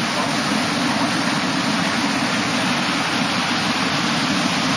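Ocean surf breaking on the shore, a steady rushing noise with no let-up.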